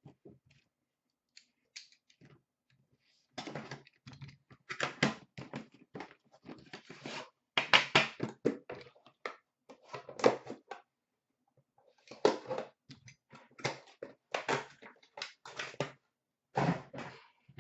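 Crinkling of a trading-card box's plastic wrapping and packaging as it is pulled off by hand, in irregular crackly bursts with short pauses.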